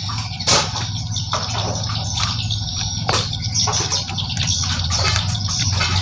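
Metal parts of a Yamaha 100 motorcycle engine being taken apart: irregular small clicks, knocks and scrapes, several a second, over a steady low hum.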